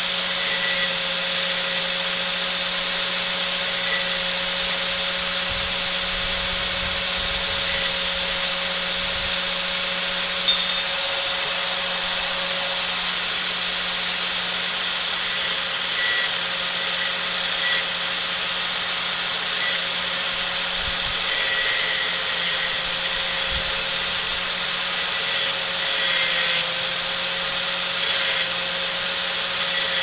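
Electric angle grinder running steadily with a constant motor whine, as a small steel part is pressed against the spinning disc in repeated short passes. Each pass adds a harsh rasping grind over the hum, with several clustered in the second half.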